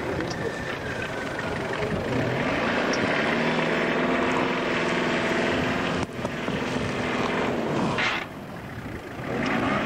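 Off-road 4x4's engine revving hard under load as the vehicle works through deep loose mud, its pitch climbing. It briefly eases off about eight seconds in, then revs up again near the end.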